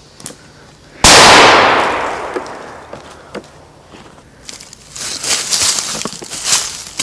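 Polish Viper 1 firecracker exploding with one sharp bang about a second in, its echo dying away over about two seconds. From about halfway, crunching footsteps on the ground.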